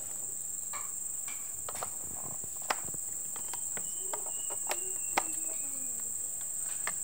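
Steady high-pitched insect chorus, with a few short plastic clicks as cable plugs are pushed into a small battery pack.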